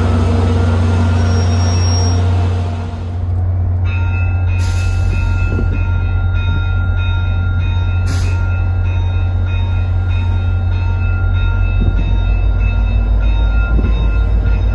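VIA Rail F40PH-2 diesel locomotives running at the platform with a deep, steady engine rumble as the train gets under way. About four seconds in, a high ringing tone that pulses steadily joins the rumble. There are two short hisses, and the engine rumble grows slightly louder and pulses near the end.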